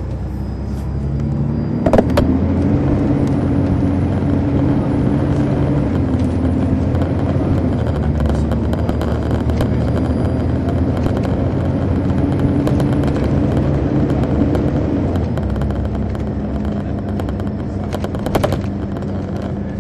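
Detroit Diesel Series 60 diesel engine of an MCI D4000 coach, heard from the rear seat inside the bus, pulling under way. Its pitch climbs about two seconds in, steps down and up again a few times, then settles lower near the end. A sharp knock sounds about two seconds in and again near the end.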